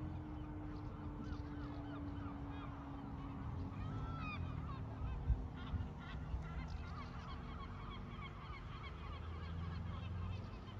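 Secomak CS8 electric siren winding down after its test, a low tone slowly falling in pitch and fading, with a flock of birds giving many short calls over it. A single thump about five seconds in.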